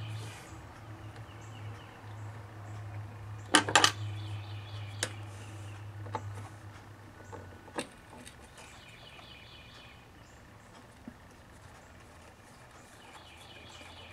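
Sharp clicks and knocks from handling the Facetron faceting machine's speed-control panel, a loud double click about three and a half seconds in and smaller single clicks after it, over a low steady hum that stops about halfway through.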